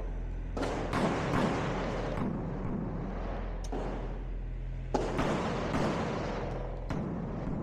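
9mm Glock 19X pistol shots fired through a match stage: three quick shots in the first second and a half, then single shots a second or two apart, each with a reverberant tail.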